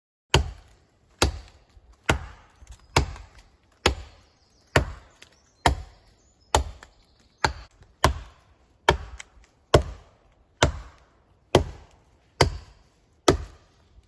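A polished flint axe head on an ash haft chopping into a standing tree trunk: a steady series of sharp blows, a little more than one a second, each a hard knock that dies away quickly.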